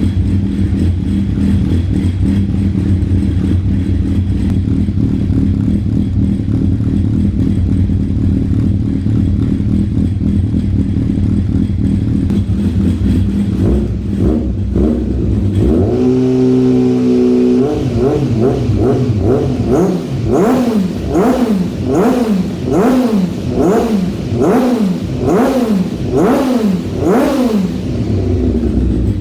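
Honda CB1000SF's inline-four engine with an aftermarket racing silencer, idling steadily for a little over half the time. It is then held briefly at higher revs and blipped repeatedly, about once a second, each rev rising and dropping quickly back.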